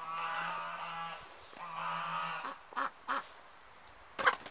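Ducks quacking: two drawn-out calls, then two short quacks, and a short, loud sharp sound near the end.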